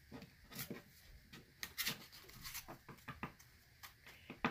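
Faint, scattered rustles and light ticks of hands handling trading cards and card packs, about half a dozen short sounds with the sharpest tick near the end.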